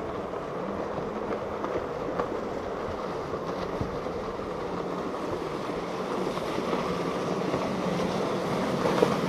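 Outboard motors of center-console boats running at speed, a steady drone that swells slightly as one boat passes close near the end, with rushing spray and wind.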